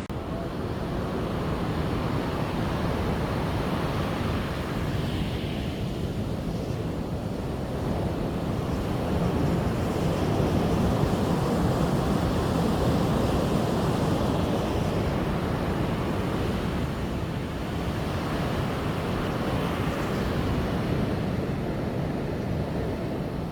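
Surf washing onto a sandy beach in a steady wash of noise, with wind buffeting the microphone.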